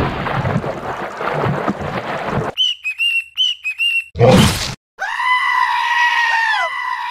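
Cartoon meme sound effects: a noisy rush, then a quick run of short high chirps, a loud hit, and after a brief silence a long, wavering goat-like scream that dips in pitch now and then.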